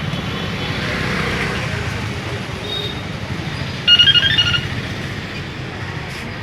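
Town street traffic rumbling steadily, with background voices. About four seconds in, a brief high warbling tone stands out as the loudest sound.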